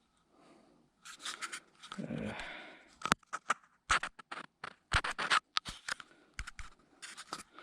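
Handling noise: a string of sharp clicks, scrapes and rustles as a camera is picked up and handled close to its microphone.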